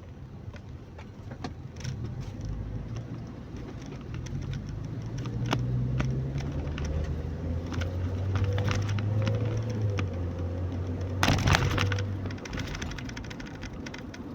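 Car engine and road noise heard from inside the cabin, the engine hum growing louder from about four seconds in as the car gets under way, with small clicks and a loud brief knock or clatter about eleven seconds in.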